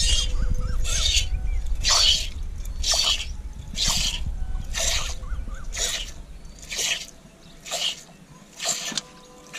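Hand milking of a cow: jets of milk squirting into a part-filled aluminium pot, a short frothy hiss about once a second in a steady rhythm. A low rumble underlies the first two-thirds and then stops.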